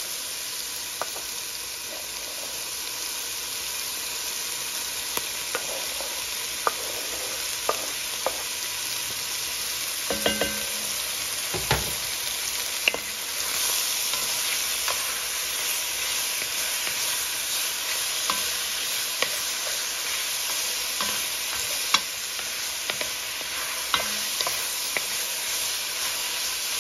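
Chopped bacon sizzling in its own fat in an enamelled cast-iron Dutch oven, stirred with a wooden spoon that knocks and scrapes against the pot now and then. Diced onion goes into the hot fat partway through.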